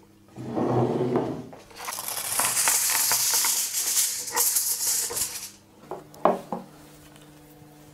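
Aluminium kitchen foil pulled off the roll and spread out by hand, crinkling and rustling for several seconds. A couple of light knocks follow about six seconds in.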